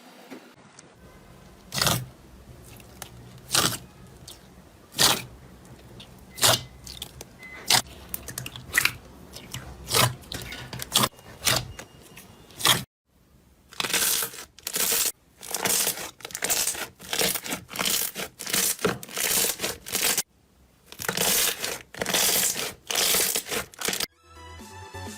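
Slime being squeezed and pressed by hand, giving sharp crackling pops: scattered single pops at first, then denser runs of crackling from about halfway on.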